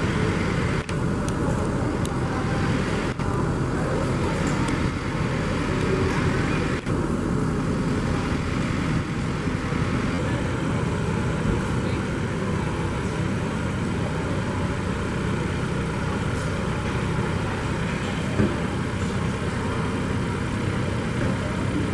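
John Deere utility tractor's diesel engine running steadily while the tractor tows a small utility trailer.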